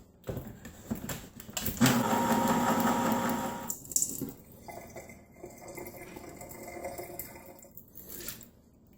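A can of mushrooms being opened and emptied into a strainer in the sink: clicking at first, then a louder stretch of pouring and splashing liquid, trailing off into quieter dripping and draining.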